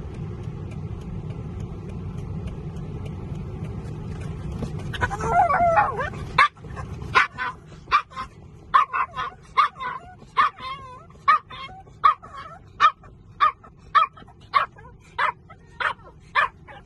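Small dog whining, then barking in a steady run of short, high yips about two a second, excited at seeing its owner outside the car window. A steady low hum sits under the first six seconds and stops just before the barking starts.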